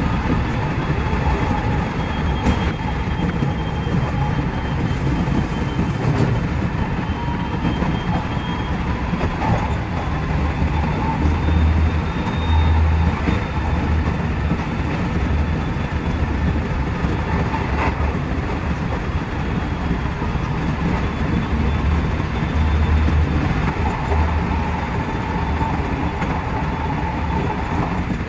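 JR West 207 series electric train running at speed, heard from inside the driver's cab: a steady rumble of wheels on rail, with faint tones drifting in and out above it.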